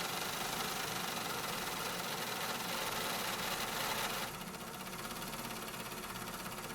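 Factory machinery running, a dense steady machine noise. About four seconds in it steps down to a slightly quieter machine sound of a different grain.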